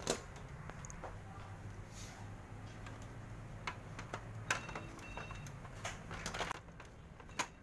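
Plastic clicks and knocks as the ribbed plastic guide panel inside a Canon iR photocopier is handled and moved into place, with a few sharp snaps, the loudest just after the start and near the end.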